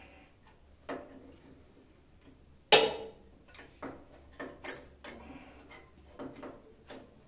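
Scattered knocks and clicks of parts and tools being handled while an old bathroom sink and mirror are taken down. One sharp clank a little under three seconds in rings briefly.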